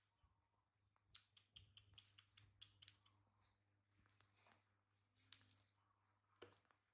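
Near silence broken by faint, scattered light clicks and taps, a quick run of them for a couple of seconds and a few more near the end.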